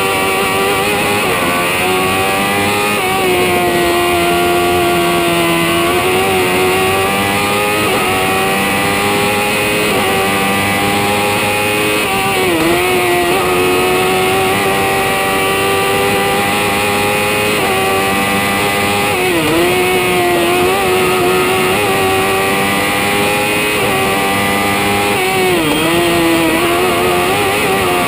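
Proto CM TracKing hillclimb racing prototype's engine running hard at high revs, heard from inside the cockpit. The pitch holds high through long pulls and dips briefly several times before climbing again.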